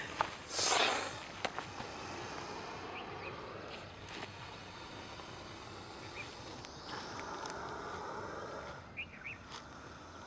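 Indian cobra giving one short, loud hiss about half a second in, followed by a few faint clicks.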